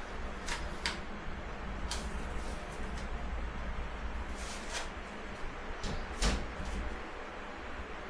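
Objects being handled during a toy unboxing: a scattered series of light clicks and knocks, the loudest about six seconds in, over a steady low rumble.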